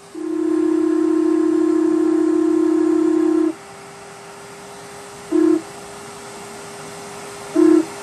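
HO scale model train's sound-decoder horn blowing one long blast of about three seconds, then two short toots about two seconds apart, over a faint steady hum.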